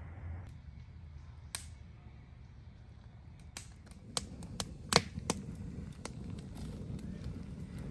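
Wood fire crackling in a fire pit: sharp, irregular pops that begin about three and a half seconds in, over a low steady rumble.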